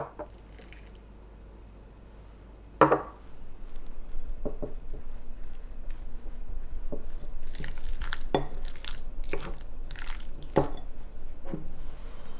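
A wooden spoon mixing corn kernels, flour and water into a batter in a ceramic bowl: a wet stirring sound with repeated knocks of the spoon against the bowl, after one sharp knock about three seconds in.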